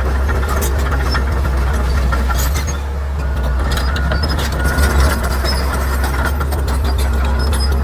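Bulldozer's diesel engine running steadily under load, with many short clicks and cracks over the low engine drone.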